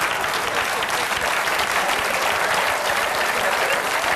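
Theatre audience applauding steadily, with laughter.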